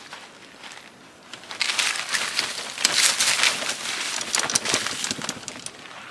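Lawnmower grass bag being emptied: a dense crackling rustle of clippings being dumped and shaken out, starting about one and a half seconds in.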